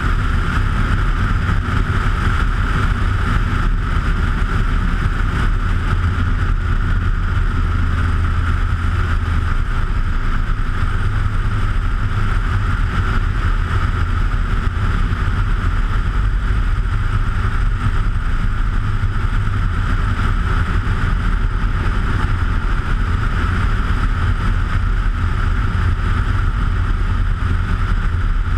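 Bushcaddy ultralight floatplane's engine and propeller droning steadily in flight on the approach to a water landing, heard from a camera mounted outside the aircraft on the float struts.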